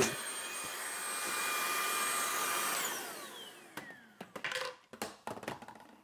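Tineco A10 cordless stick vacuum's motor running in handheld mode with a steady whine, its attachment held on the hard surface by suction. About three seconds in it is switched off, and the whine falls in pitch as the motor spins down. Several clicks and knocks follow as the vacuum is handled and stood upright.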